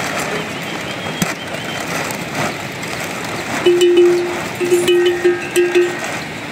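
Steady rushing background noise. About four seconds in, a flock animal gives one long bleat followed by a few shorter ones.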